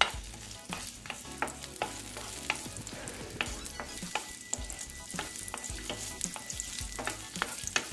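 Chopped garlic and ginger sizzling in a little hot oil in a nonstick frying pan, with a wooden spatula scraping and tapping against the pan as it is stirred.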